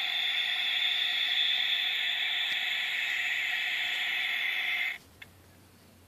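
Mongoose car alarm siren giving off a steady static-like hiss with the car battery disconnected and the alarm disarmed, a fault in the siren. The hiss cuts off suddenly about five seconds in, followed by a faint click.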